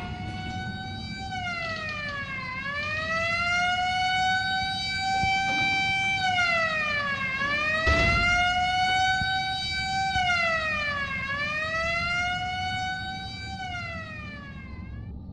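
A siren wailing: its pitch drops quickly and climbs slowly back up again about every four seconds. There is a single click about eight seconds in.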